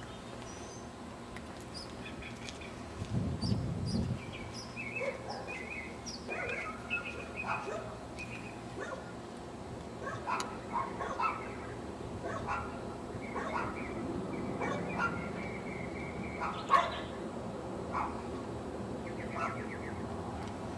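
A dog barking on and off, with small birds chirping.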